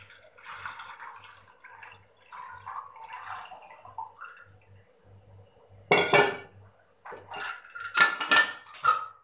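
Liquid poured from a steel milk can through a small metal strainer into a steel pot, splashing for about four seconds. Then come loud clanks and a run of sharp clinks of steel utensils as the strainer and can are set down and the can's lid is put back on.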